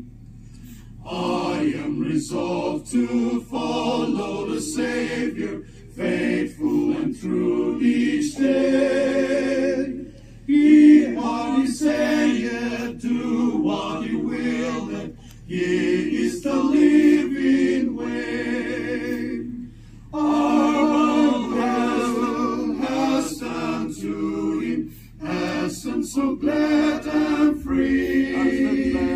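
A group of men singing a song together unaccompanied, in phrases of a few seconds, with a short breathing pause between each.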